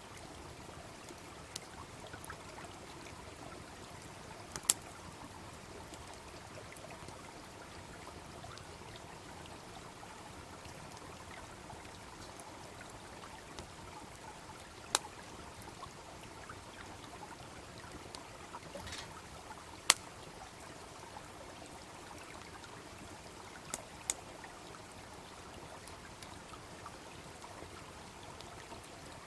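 Steady rush of a babbling brook, with a wood bonfire giving a handful of sharp pops spread through it.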